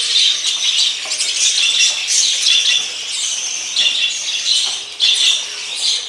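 A flock of budgerigars chattering, many birds at once, a continuous stream of high chirps and warbles.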